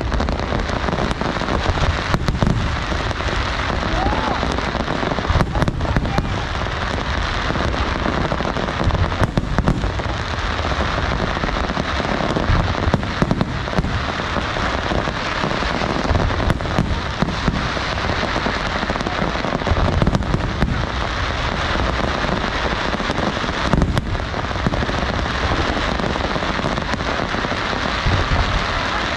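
Fireworks display: a continuous dense crackle of bursting aerial shells, with many sharp bangs throughout and no let-up.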